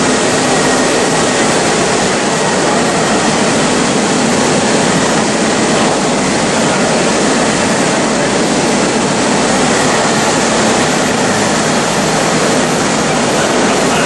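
Automatic corner weld seam finishing machine running, a loud, steady rushing noise from its abrasive heads and motors that does not change.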